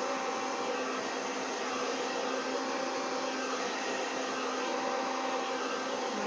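Handheld hair dryer running steadily: a rush of air with a constant hum under it.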